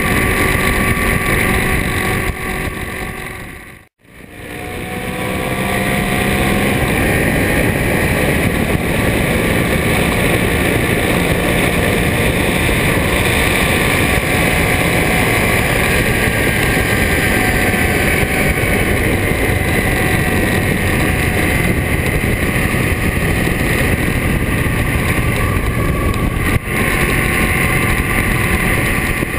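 2007 Ducati Monster S4RS's 998 cc L-twin with Termignoni exhausts running under way, with wind noise on the microphone. The sound cuts out abruptly about four seconds in, then comes back with the engine pitch rising as the bike accelerates, and there is a brief drop near the end.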